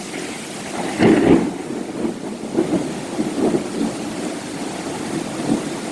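Thunder in a heavy rainstorm: a loud crack about a second in, then uneven rumbling over the steady hiss of falling rain.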